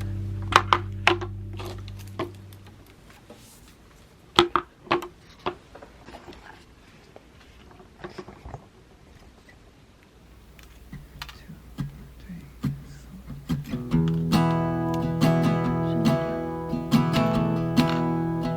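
Background song fading out, then a quiet stretch of scattered sharp clicks and taps, then acoustic guitar music starting up and filling the last few seconds.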